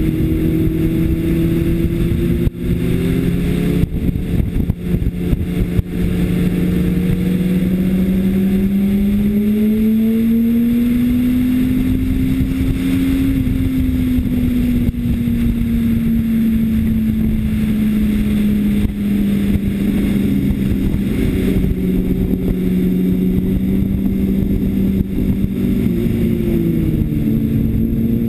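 2005 Honda CBR600RR's inline-four engine running hard on track. Its note climbs slowly for several seconds and then eases back, with wind rushing past. Near the end the pitch steps up in quick jumps as it downshifts for a corner.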